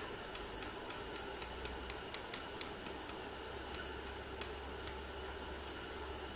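A run of small sharp clicks and taps, about three a second for the first four seconds or so, from hands working a paper stencil with a pencil on wooden pallet boards, over a steady low hum.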